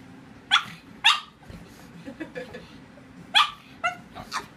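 A pug barking: two short barks about half a second apart, then three more in quick succession about three seconds in.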